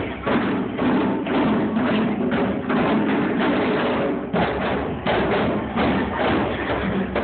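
An ensemble of djembe-style hand drums played together, with dense, fast strokes in a steady rhythm. The playing briefly thins a little past four seconds in, then carries on.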